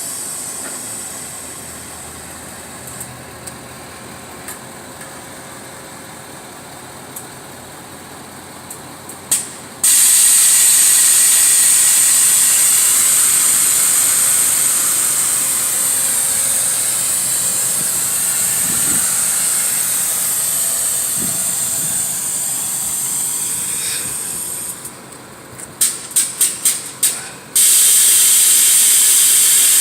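A Ford F350's Kelderman air suspension hissing loudly as compressed air rushes through its valves. A few clicks come first. The hiss starts suddenly about ten seconds in and runs steadily. It stops for a string of about six quick clicks, then starts again near the end.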